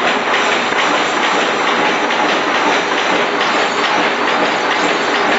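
A3/A4 desktop paper folding machine with a cross-fold unit running: a steady, loud mechanical clatter with a fast run of repeating clicks as sheets feed through its rollers.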